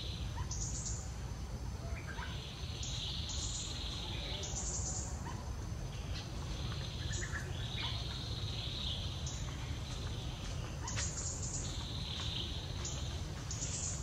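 Forest ambience: high calls of birds and insects repeat every couple of seconds over a steady low rumble.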